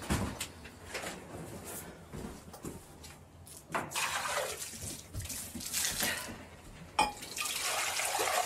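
Scattered knocks and rustles of handling, then a sharp knock about seven seconds in and water pouring steadily from a plastic jug into a bowl.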